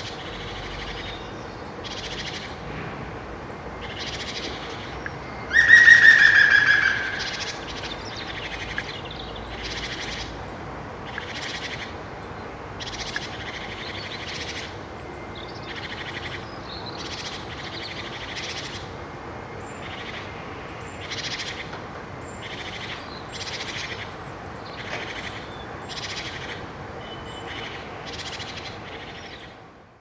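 European green woodpecker giving its laughing call once, about five and a half seconds in: a rapid run of loud notes lasting about a second and a half, falling slightly in pitch. Other birds chirp faintly throughout.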